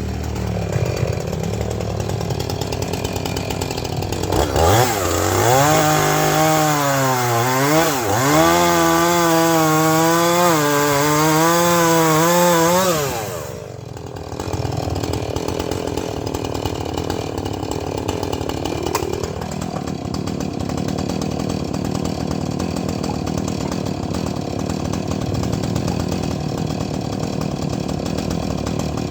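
Husqvarna chainsaw running at high revs and cutting logs, its engine note sagging and recovering about once a second for several seconds. About halfway through it drops off briefly, then runs on steadily.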